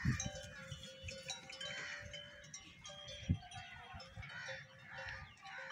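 Livestock bells tinkling irregularly as the herd of cattle and water buffalo moves, several pitches overlapping, with a low thump just after the start and a sharper one about three seconds in.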